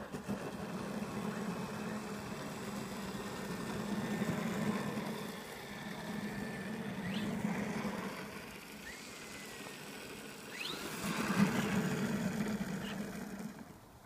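Electric motor and propeller of a Seagull Super Decathlon RC model plane running as it taxis on the ground, the throttle rising and easing off by turns, with the loudest burst about eleven seconds in.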